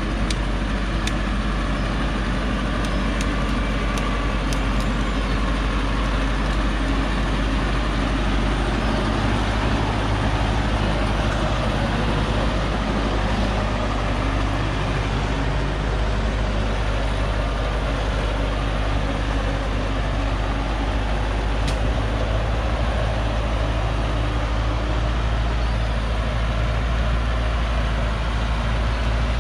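Diesel engine of a loaded Hoa Mai log truck running at low speed as it creeps down a steep dirt slope, a steady low rumble whose revs shift a little midway. A few sharp clicks sound over it.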